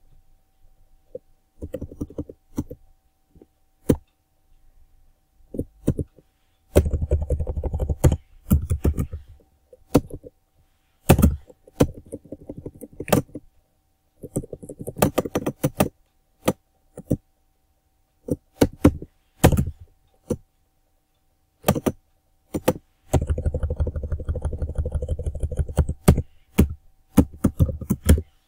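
Typing on a computer keyboard: runs of quick keystrokes lasting a second or two, broken by pauses and a few single key presses.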